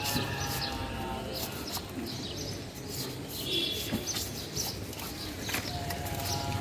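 Knife blade scraping scales off a whole fish on a wooden block, short rasping strokes one after another. Bird chirps and calls come through in the background.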